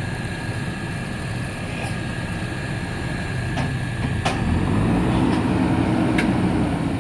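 JCB 3DX backhoe loader's diesel engine running steadily, then working harder and getting louder about halfway through, with a few sharp knocks.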